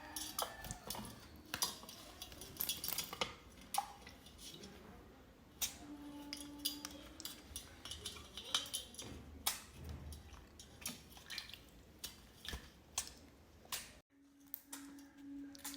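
Irregular sharp clicks and light clinks, several a second. Near the end the sound drops out abruptly and a faint low pulsing hum follows.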